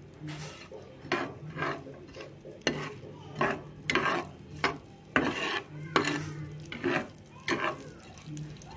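A metal spatula scrapes and stirs across a nonstick frying pan in about a dozen short strokes, a bit more than one a second. Chopped shallots, garlic and chillies are sizzling in the oil as they are sautéed until fragrant. A steady low hum runs underneath.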